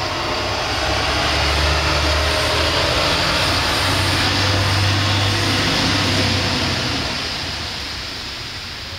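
A large vehicle driving past on a wet street: a low engine rumble with tyre hiss that swells over the first second, holds for several seconds, then fades away near the end.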